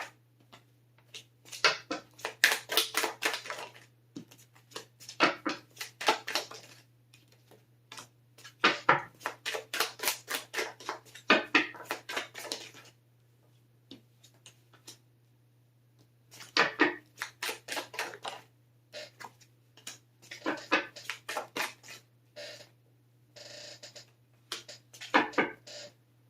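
A tarot deck being shuffled by hand: bursts of rapid clicking, each a second or two long, with short pauses between, over a faint steady low hum.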